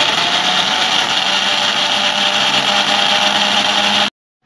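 Electric blender running steadily, blending grapes and country sugar into juice, with a steady whine over the motor noise; it cuts off suddenly about four seconds in.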